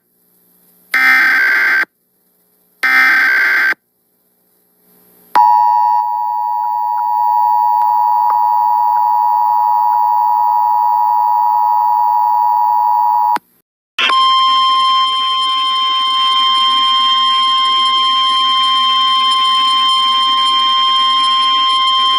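Emergency Alert System severe thunderstorm warning tones. Two short, screeching bursts of SAME digital header data, then the two-tone EAS attention signal held steady for about eight seconds. After a brief gap comes a single steady tone over static, the NOAA Weather Radio 1050 Hz warning alarm.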